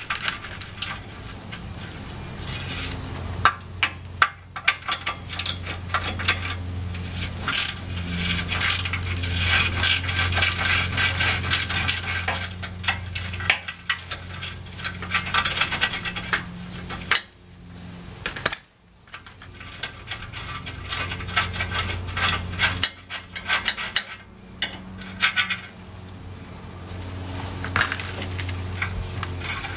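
Rapid metallic clicking and clinking of a socket wrench working a rusty exhaust flange nut loose, over a steady low hum.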